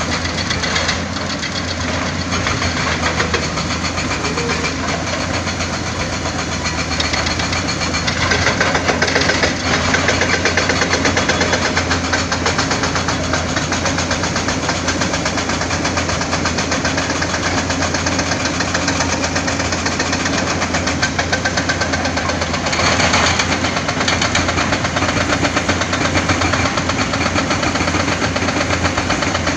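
Diesel engine of heavy earthmoving machinery running steadily with a fast, even chugging, briefly louder about eight seconds in and again near twenty-three seconds.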